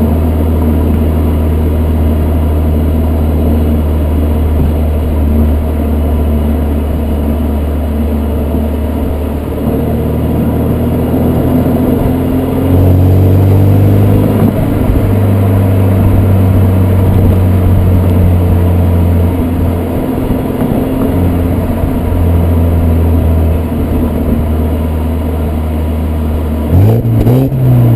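BMW E81 120i's four-cylinder petrol engine heard through its stock exhaust, running at fairly steady revs with a few small shifts in pitch, then revving up sharply about a second before the end.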